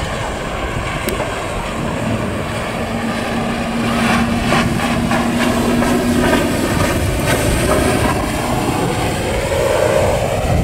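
Yamaha 100 hp two-stroke outboard pushing a rigid inflatable boat at planing speed, running steadily with water rushing off the hull; it gets louder about four seconds in.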